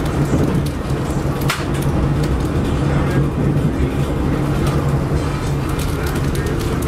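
Ride noise inside a moving passenger rail car: a steady rumble of wheels on track with a low hum, and scattered sharp clicks and rattles, the sharpest about a second and a half in.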